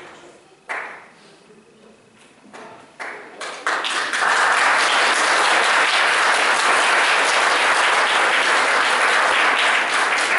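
Audience applauding, starting about four seconds in and holding steady.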